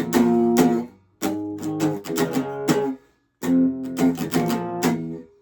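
Stratocaster electric guitar on its bridge humbucker pickup, strummed chords played through an amp with a mellow tone, in three short phrases with brief gaps between them.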